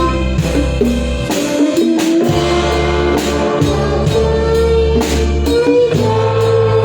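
A live band playing a song: a drum kit keeps a steady beat under held bass notes and a sustained melody line.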